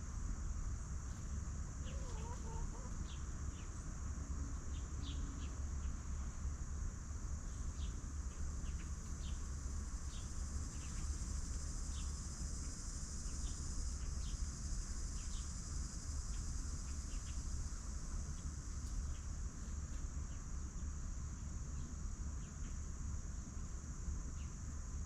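Free-range chickens clucking now and then over a steady high insect drone, with short high chirps scattered throughout.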